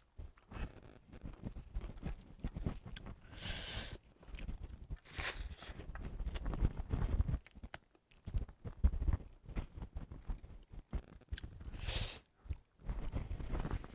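Eating sounds close to the microphone: chewing with small knocks and clicks of food and utensils, and a few short breathy hisses.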